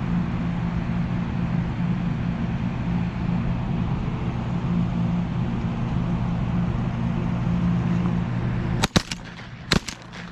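Steady rumble of strong wind on the microphone, then about nine seconds in two shotgun blasts about a second apart, the first the louder.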